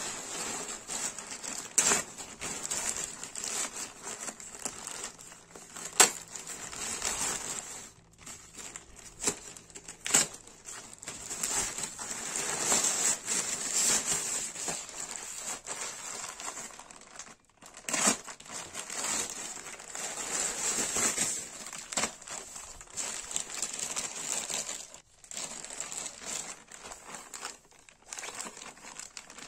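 Plastic packaging crinkling and rustling as a poly mailer bag and a plastic product bag are handled and opened, with a few sharp snaps along the way.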